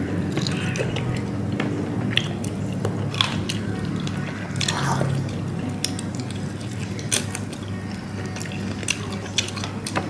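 People eating grilled chicken wings: chewing and wet mouth sounds, with scattered short clicks and taps.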